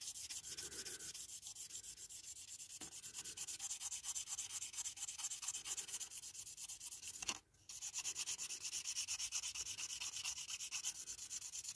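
Nail buffer block rubbed quickly back and forth over a clear plastic model windscreen, a fine scratchy rubbing in about five short strokes a second, sanding scratches out of the plastic. It breaks off briefly about seven and a half seconds in.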